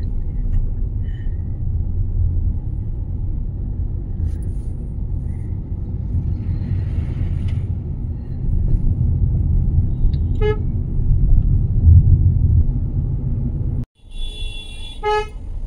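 Steady low rumble of a car driving, heard from inside the cabin, with a vehicle horn tooting briefly about ten seconds in and again, for about a second, near the end.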